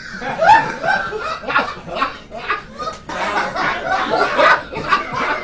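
Audience laughing at a punchline: a crowd of chuckles and higher-pitched laughs overlapping throughout.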